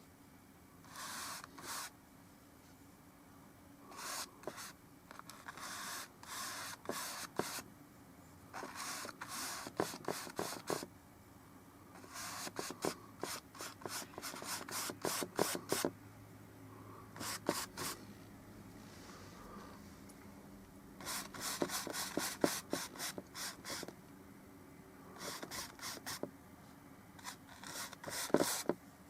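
Brush strokes of oil paint on a painting surface: bursts of quick scratchy scrubbing strokes, a second or two at a time, with short pauses between.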